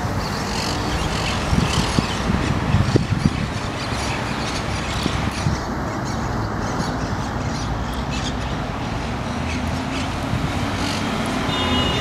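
Steady city traffic noise with scattered short, sharp calls from monk parakeets. Near the end a steady high whine starts over a lower hum, as from a passing vehicle.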